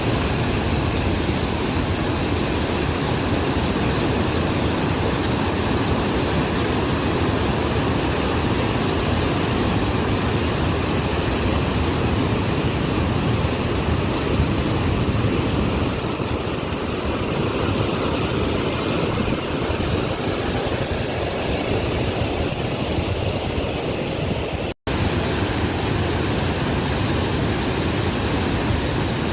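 Waterfall: steady rushing of falling water, with a brief dropout near the end.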